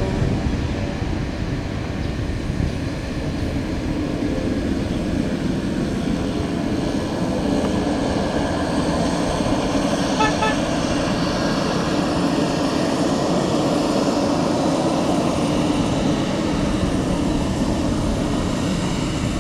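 Pilatus PC-12 NG's single PT6 turboprop engine running steadily at low power while the aircraft taxis to park. About halfway through there are two short beeps.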